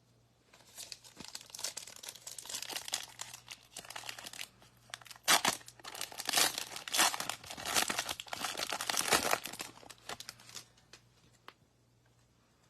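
A foil trading-card pack wrapper being torn open and crinkled by hand, a dense crackling with sharp snaps that lasts about ten seconds and is loudest in the middle.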